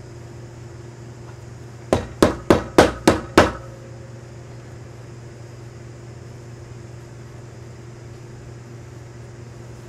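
Six sharp knocks in quick succession, about three a second, starting about two seconds in.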